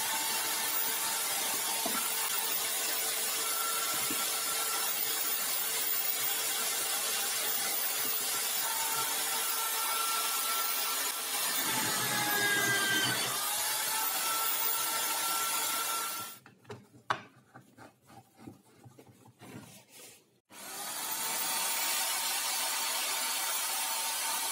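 Electric drill in a wooden drill-press stand running and boring into a wooden block, its pitch dipping briefly about halfway through as the bit takes load. About two-thirds of the way in, the drill stops for about four seconds, leaving a few clicks and knocks, then starts again and runs up to speed.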